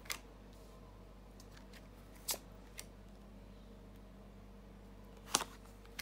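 Tarot cards laid down one at a time on a tabletop: a few short taps and slides of card on the surface, the strongest about five seconds in, over a faint steady room hum.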